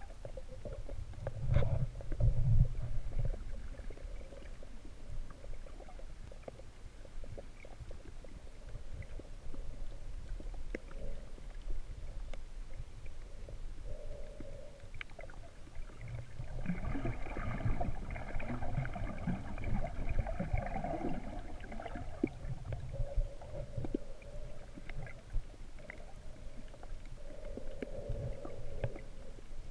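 Muffled underwater sound picked up by a GoPro camera in its waterproof housing: a steady low rumble of water moving around the housing, with a few louder bumps about two seconds in and a louder, busier stretch with some higher hiss a little past the middle.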